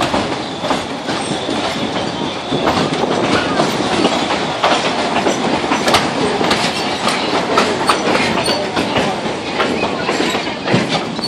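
Narrow-gauge forest railway train running, its wheels clattering and knocking over the rail joints, with a faint high wheel squeal in the first couple of seconds.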